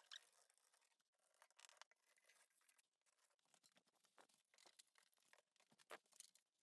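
Near silence: room tone with a few faint scattered clicks and rustles.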